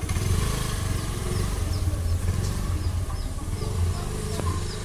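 A steady low engine-like rumble, like a motor idling, with faint short high chirps repeating about twice a second over it.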